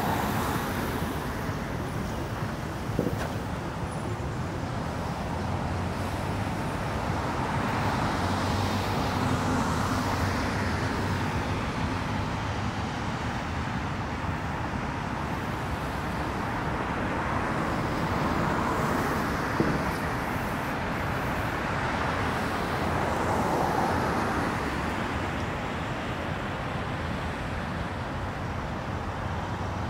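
Steady road traffic noise, swelling several times as vehicles pass.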